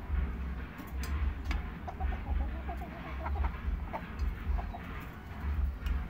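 Chickens clucking softly in a quick run of short calls while pecking rice from metal bowls, with a few sharp taps of beaks on the metal, over a low rumble.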